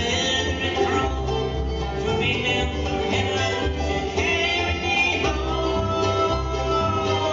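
Bluegrass band playing live on banjo, fiddle, mandolin, guitar and upright bass. A long high note is held through the last two seconds.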